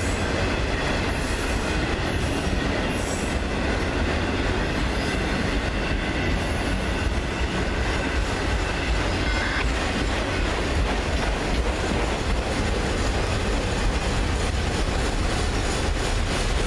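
Autorack freight cars rolling past close by: a steady rumble of steel wheels on the rail joints and track. A few brief high-pitched squeals come in the first three seconds.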